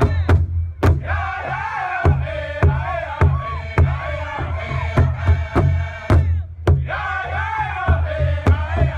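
Background music: a steady drum beat over a low drone, with voices singing that stop briefly about six seconds in.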